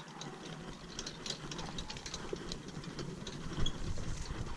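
Pony-drawn Hartland Piccolo carriage rolling at a walk over gravel: wheels crunching and the cart rattling, with many small clicks and knocks from the pony's hooves and the metal frame.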